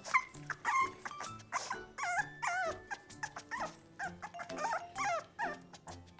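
Pomeranian puppy whining in a run of short cries that rise and fall in pitch, over background music.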